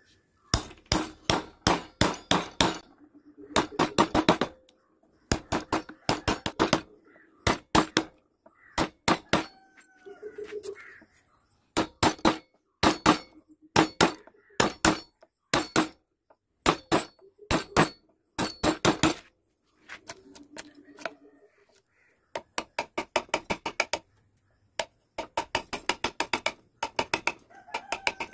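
Mallet striking a wood-carving chisel into wood: quick runs of sharp taps, about five a second, broken by short pauses.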